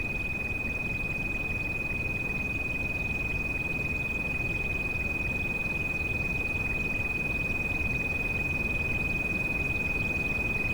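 A steady, high-pitched pure tone of a tinnitus-masking sound-therapy track, held unchanged over a steady hiss of rain.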